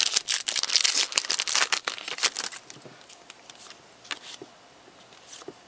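Wrapper of a trading-card pack being torn open and crinkled, a dense crackling for the first two and a half seconds, then only a few faint crackles.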